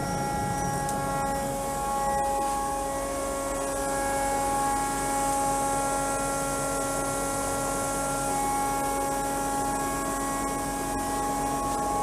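Scheppach bag-type dust collector running steadily: a constant hum with several held whining tones over a hiss of air drawn through the ducting.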